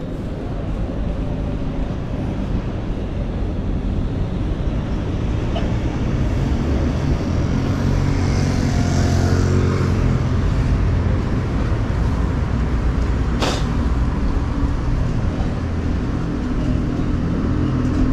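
Street traffic heard from a moving bicycle, with steady low wind and road rumble. A vehicle engine hum swells toward the middle, and a single short sharp click comes about three-quarters of the way through.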